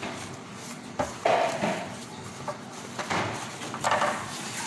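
Large sheets of thin flatbread rustling and tearing as plastic-gloved hands pull them apart. It comes in about four short bursts, with a knock about a second in.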